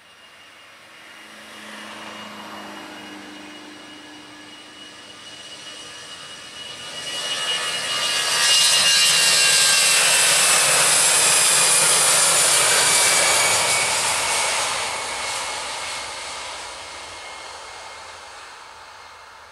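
Airbus A320-214's twin CFM56 jet engines at takeoff thrust as the airliner rolls down the runway past the listener. The sound builds over several seconds and is loudest for about five seconds in the middle, with an engine whine that drops in pitch as it passes, then fades away.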